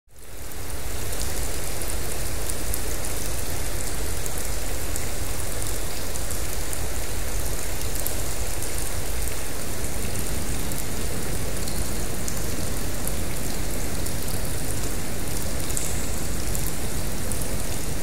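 Designed waterfall sound effect: a steady rush of water built from recordings of tap water running into a plugged sink, with bright reverb-drenched droplets panned left and right, layered over white noise from a Korg synthesizer filtered into a warm mid-range wash and a deep bass rumble. It fades in over about the first second.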